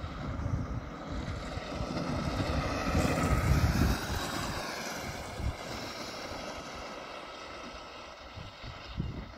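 Electric Bambino kart with a MightE drive whining as it drives past, growing louder to a peak about three and a half seconds in, dropping in pitch as it goes by, then fading away.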